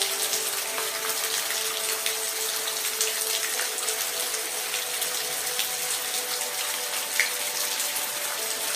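Steady rainfall, an even hiss with scattered individual drop ticks, over faint held low tones.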